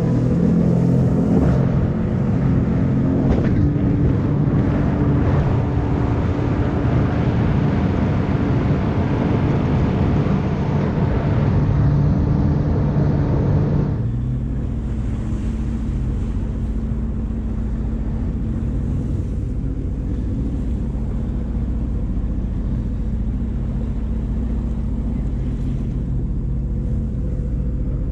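Jet ski engine running at speed with water rushing past the hull, then about halfway through it drops suddenly to a low, steady idle as the craft moves slowly.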